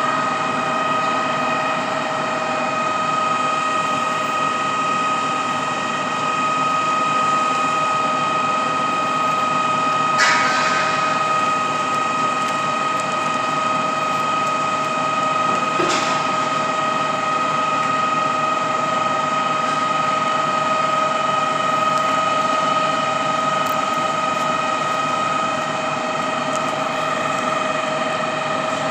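Truck-mounted concrete pump's hydraulics and engine running with a steady whine while its 52-metre boom folds closed section by section. There is a short hiss about ten seconds in and a click about sixteen seconds in.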